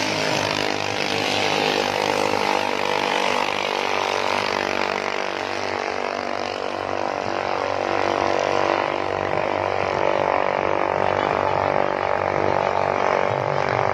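Ketinting racing boat engines running steadily at high revs: a continuous buzzing drone with only slight shifts in pitch.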